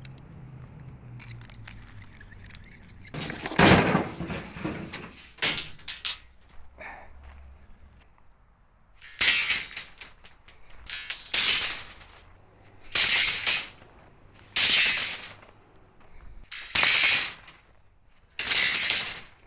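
4.5-inch angle grinder with a diamond-rim wheel making a series of short cuts into rebar: about seven brief, harsh, hissing bursts, each under a second or so, one or two seconds apart.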